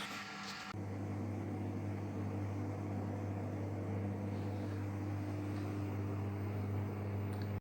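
Samsung front-loading washing machine running an Eco Drum Clean cycle: a steady low motor hum. A brief higher noise dies away in the first second.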